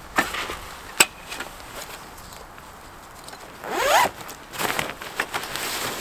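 Zipper on a hot tent's storage bag being pulled open in one long rising rasp about four seconds in, followed by shorter rasps. A sharp knock about a second in.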